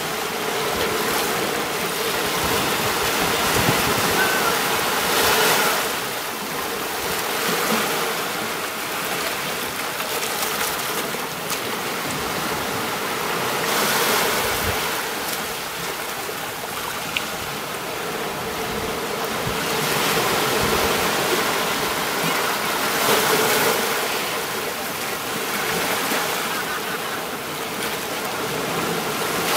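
Sea waves breaking and washing up a beach, the steady surf swelling louder every several seconds as each wave comes in.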